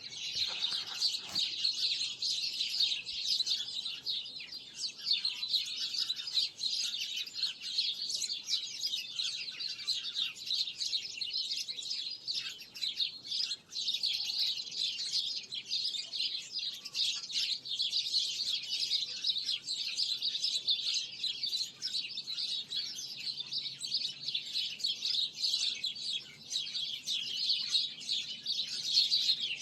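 Many small birds chirping and twittering at once, a dense, continuous chorus of short high calls.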